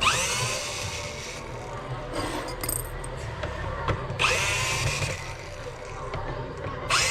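A power drill-driver runs in three short bursts, each spinning up quickly to speed, about four seconds and then about three seconds apart.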